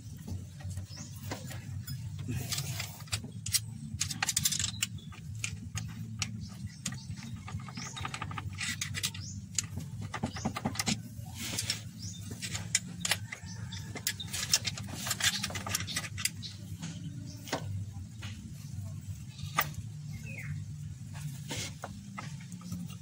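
Metal clinks and light rattles of hands and tools handling the timing gears of an Isuzu 4BE1 diesel engine as a gear is taken off to reset the timing marks, over a steady low hum.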